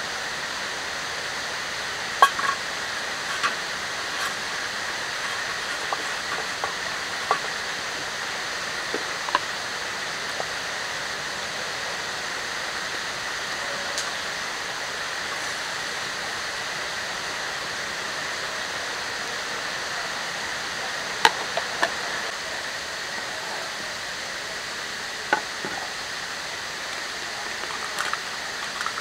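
Steady rushing of flowing river water, with scattered sharp clicks and clinks of metal cookware being handled on a small wood-burning box stove, the loudest about two seconds in and again past the twenty-one-second mark.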